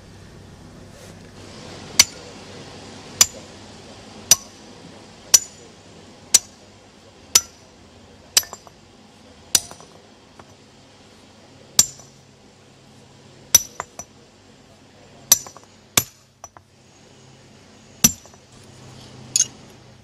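Hand sledgehammer striking a row of steel plug-and-feather wedges set in drilled holes in a stone block, driving them in to split the block along the line. About fourteen sharp, ringing metal-on-metal blows come roughly a second apart, with a few short pauses.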